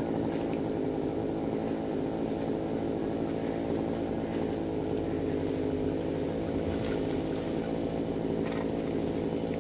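Two-stroke chainsaw running steadily up in a coconut palm, held at an even speed without revving.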